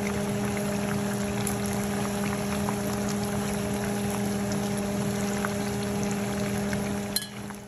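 Shrimp spring rolls deep-frying in a pot of hot oil: a steady sizzle peppered with small pops and crackles, over a steady low hum. Near the end a click, and the sizzle cuts off.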